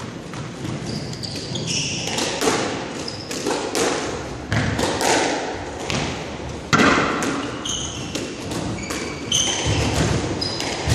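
Squash being played: the ball smacks off the walls and rackets in irregular sharp hits, starting about two seconds in. Short high squeaks of court shoes on the wooden floor come between the hits.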